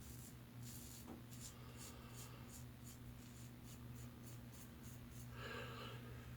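Faint short scratchy strokes of a double-edge safety razor blade scraping lathered stubble, about two or three a second, during a cleanup pass of a wet shave.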